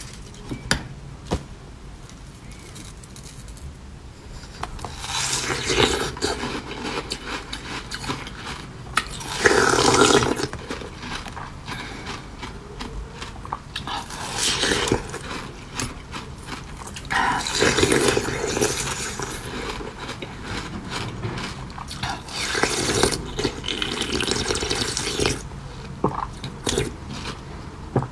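Close-up eating sounds of someone biting into and chewing a purple cabbage-shaped piece. About five loud bursts of crunching are spread through, with quieter wet chewing between them.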